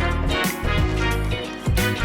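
Background music with a steady beat: an upbeat funk- or swing-style track with drums and bass.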